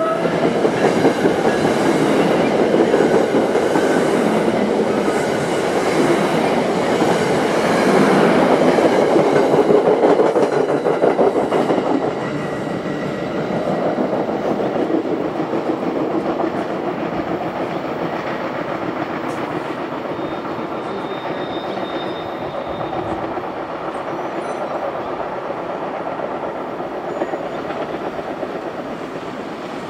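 NJ Transit commuter train passing close by, its wheels running over the rails. Loud for the first dozen seconds, then fading steadily as it moves away.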